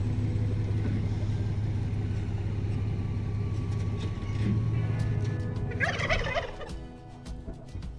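A turkey gobbles once about six seconds in, a short rapid rattling call.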